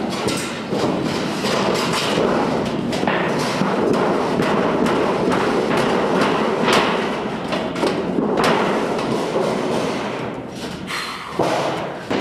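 Corrugated metal roofing sheet being lifted and shifted on a metal roof, rattling and scraping, with several sharp knocks.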